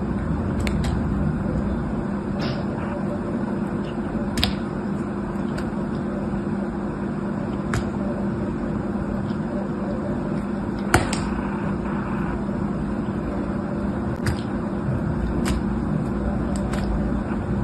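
A box-cutter blade shaving thin curls off a bar of soap: soft scraping with a sharp click every second or few, over a steady low hum.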